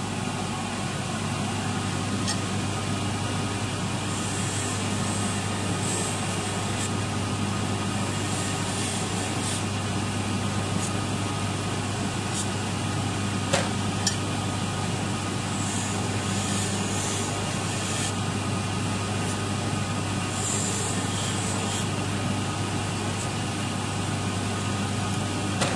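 Electric polishing machine running steadily with a low motor hum, its Scotch-Brite deburring wheel spinning. Several times a scissor blade is pressed against the wheel, giving short bursts of high scrubbing hiss as the burrs are taken off the sharpened edge. A couple of sharp ticks come around the middle.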